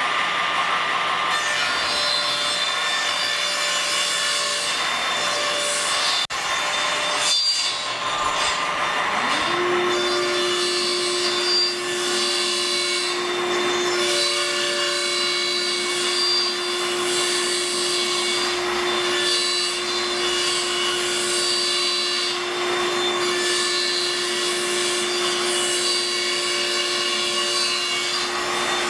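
Table saw running and cutting wood boards to width and length. There is a short break about six seconds in. From about nine seconds in, a saw motor spins up to a steady whine that continues under the cutting.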